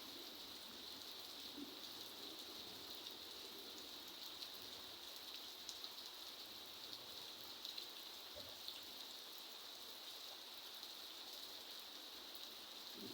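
Steady rain falling, with many small drop taps scattered through it.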